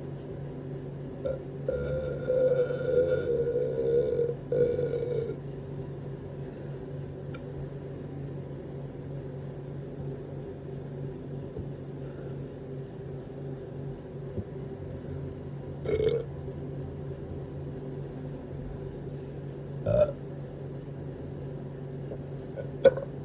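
A person burping: one long burp of about three and a half seconds near the start, then short burps about 16 and 20 seconds in and a quick one near the end, over a steady low hum.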